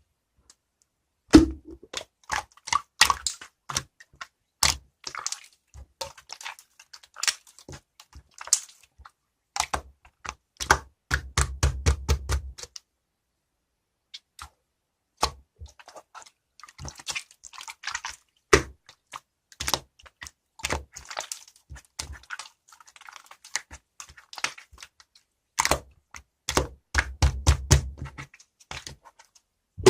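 Slime being pressed and poked by hand, making sharp pops and clicks at an uneven pace, with two spells of rapid crackling, one near the middle and one near the end.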